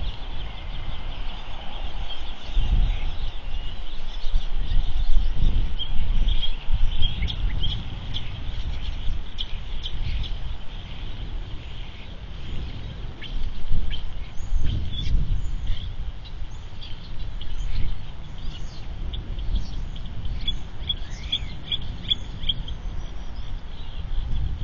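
Gusting low rumble of wind on an outdoor microphone, with short high bird chirps scattered over it, coming thicker in the second half.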